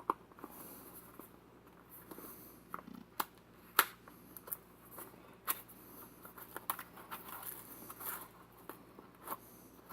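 Product packaging being opened and handled by hand: scattered sharp clicks and snaps with soft crinkling and rustling in between.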